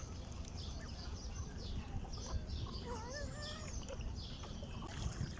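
Birds calling: many short high chirps, with a wavering call about three seconds in, over a steady low rumble.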